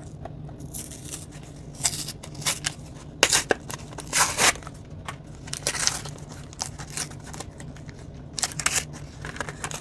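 A Pokémon TCG one-pack blister being opened: its plastic and card packaging crackling and tearing in a string of short, irregular bursts a second or so apart.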